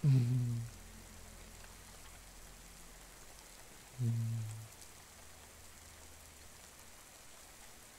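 Steady, faint rain. A low man's voice gives two short hums, one right at the start and one about four seconds in.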